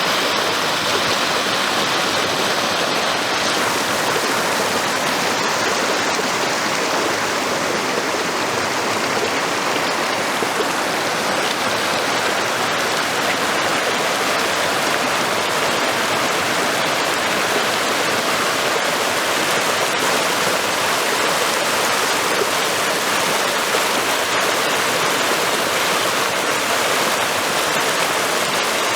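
Flowing water rushing steadily, without a break.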